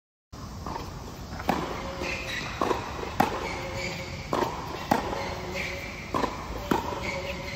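Tennis rally: a ball is struck by rackets and bounces on the court, giving sharp knocks about once a second, some in quick pairs.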